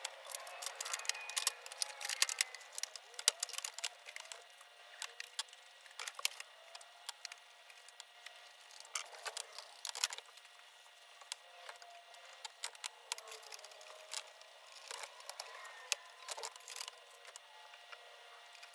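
Fast-forwarded bench handling of a computerized sewing machine under service: a rapid, irregular scatter of clicks, taps and knocks as parts, covers and tools are picked up and set down.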